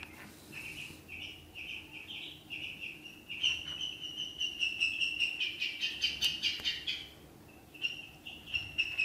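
Ducklings peeping: a steady run of short, high cheeps, busiest and loudest from about three to seven seconds in, then a brief pause before they start again.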